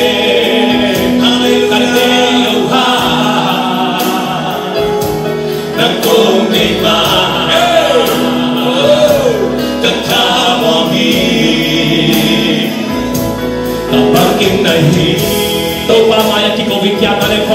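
Gospel worship song: a choir singing over musical accompaniment.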